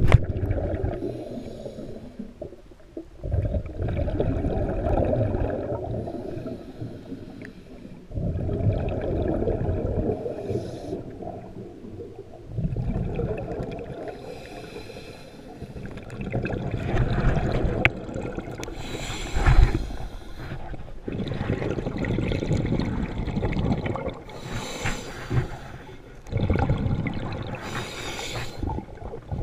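Scuba diver breathing through a regulator underwater. Each exhaled breath bubbles out in a low rumbling surge, with a quieter inhale between, repeating about every four to five seconds.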